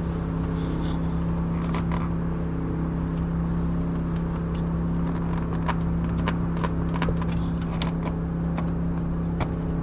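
Scattered light metallic clicks and taps of hand tools working at a stuck oil filter, over a steady low hum.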